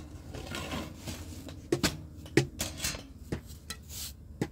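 Cookware and utensils being handled while bread is made: a handful of sharp knocks and clinks, the loudest about two and a half seconds in, with brushing and scraping sounds between them.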